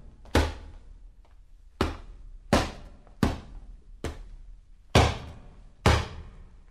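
Boxing punches landing on a leather punching bag: about seven separate thuds, each with a short slapping tail, at an uneven pace of roughly one every second.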